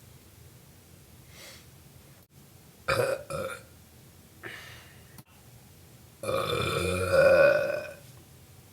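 A man burping: two short, loud burps about three seconds in, then one long burp lasting nearly two seconds near the end.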